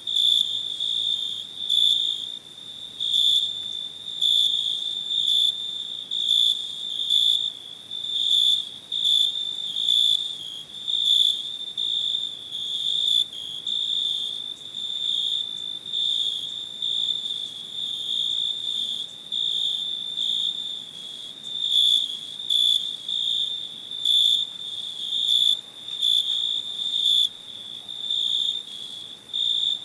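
Cricket chirping steadily in a high, even-pitched trill that pulses in rapid repeated chirps, about two to three a second.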